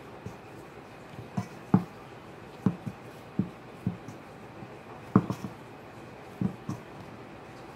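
Hands kneading dough in a stainless steel mixing bowl: about a dozen dull thuds and soft knocks at uneven intervals as the dough is pressed and pushed against the bowl.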